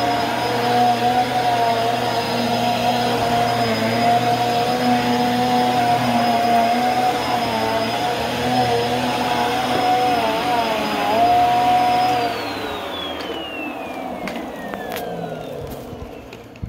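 Bissell upright vacuum cleaner running on carpet with a steady whine; its pitch wavers briefly, then about twelve seconds in the motor is switched off and winds down with a falling whine.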